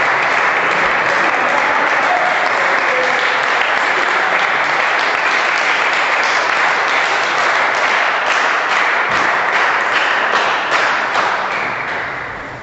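Crowd of spectators applauding steadily, with single claps standing out, dying away near the end.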